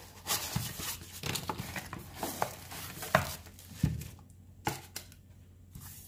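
Unboxing handling noise: a foam packing insert and a plastic-bagged humidifier lifted out of a cardboard box, rustling and crinkling, with three sharp knocks around the middle as the parts are set down.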